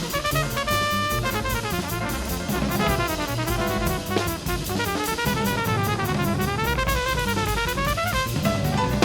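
Acoustic jazz quartet of piano, double bass, trumpet and drums playing up-tempo, with busy drums and cymbals to the fore over a walking bass line, while a fast run of notes sweeps up and down.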